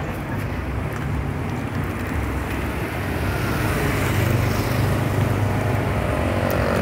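Road traffic running past on the street, with a vehicle engine growing louder about halfway through.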